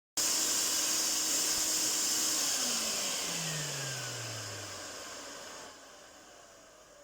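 Hoover Wet and Dry Powervac S4266 vacuum cleaner running, then switched off about two seconds in: its motor winds down, the whine falling in pitch as the loud rush of air fades away.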